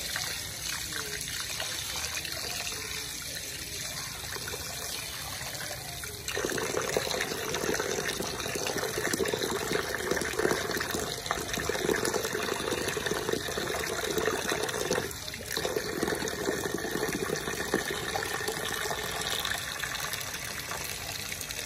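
Water pouring into a large aluminium basin of rice while hands swish and rub the grains, washing the rice. The splashing gets louder about six seconds in.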